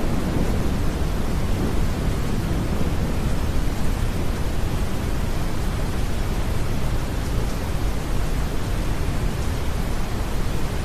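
Steady deep brown noise blended with rain, with a low rumble of distant thunder in the first couple of seconds.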